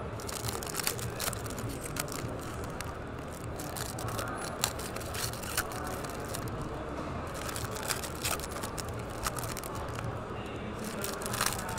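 Foil trading-card packs being torn open and handled: irregular crinkling crackles and sharp clicks of the foil wrappers, with cards sliding and tapping on the table, over a steady background din.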